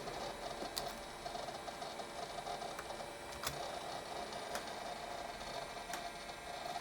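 Macintosh Performa 476 running as it loads its startup extensions: a faint steady mechanical whir with a thin steady tone, and a few faint clicks from its hard drive working.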